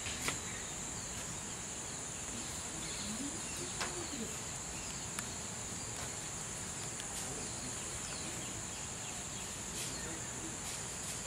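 A steady, high-pitched drone of insects such as crickets, with a few faint clicks.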